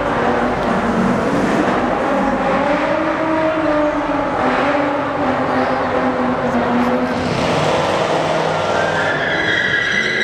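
A car doing a burnout: the engine revs hard with a wavering pitch while the tyres spin and squeal, loud and continuous. Near the end a higher-pitched squeal rises.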